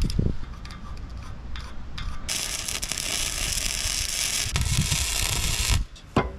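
A steel chain and lever chain binder being handled and clamped: a few metal clicks, then about three and a half seconds of steady metallic scraping and rattling with some low knocks near the end.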